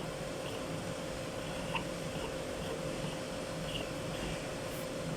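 Steady mechanical hum, like a fan or blower running, with a faint steady tone and a few faint high chirps.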